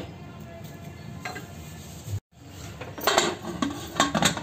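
Aluminium pressure cooker lid being set on and closed: several metallic clanks and knocks in the second half, after a quiet first half.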